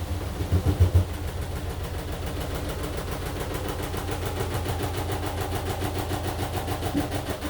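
AQUA AQW-DX12M front-loading drum washing machine running mid-cycle, its drum turning with a fast, even pulse. A few louder thumps come between half a second and a second in, and the running drops away right at the end.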